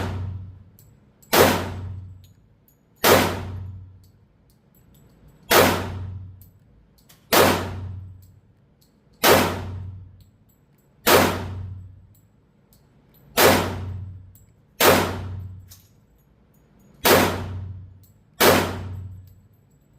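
Glock 30 .45 ACP pistol firing ten shots at an unhurried pace, roughly one every two seconds. Each report is sharp and followed by a short echoing decay.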